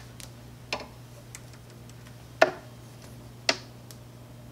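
Handling clicks and taps from a PTFE Bowden tube being pulled out of a 3D printer: three sharper clicks, the loudest about two and a half seconds in, among fainter ticks. A low steady hum sits underneath.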